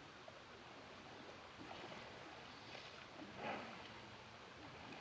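Faint flowing water with a brief splash about three and a half seconds in.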